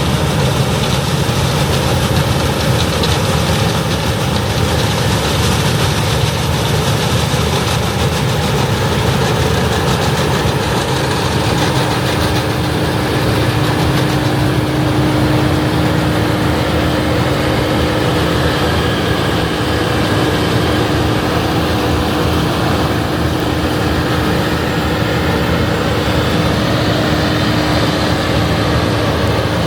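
Heavy diesel farm machinery running steadily at a constant engine speed, a deep continuous rumble, with a steady hum joining about a third of the way in.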